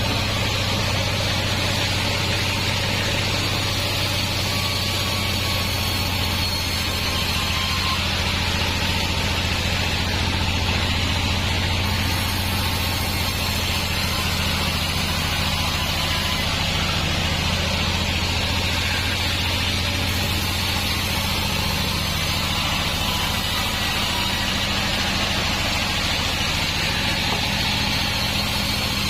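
Band sawmill machinery running steadily: a low, even engine-like hum with a continuous hiss above it and no clear change in load.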